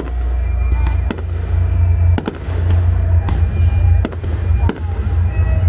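Aerial firework shells bursting in a display: about six sharp bangs roughly a second apart, over a steady deep rumble.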